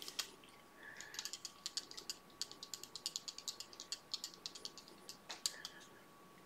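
Rapid light ticking and clicking of fly-tying thread and tools being worked at the vise as the thread is wound around the fly and drawn tight. There is a sharper click about five and a half seconds in.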